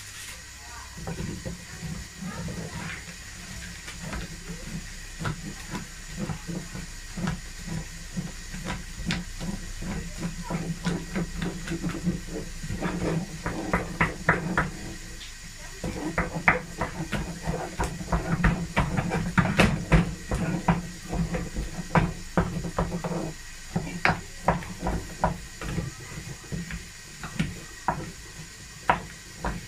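Spoon knocking and scraping against a pot as fufu dough is stirred and turned, in quick irregular strokes that are busiest in the middle, over a steady low hum that stops a few seconds before the end.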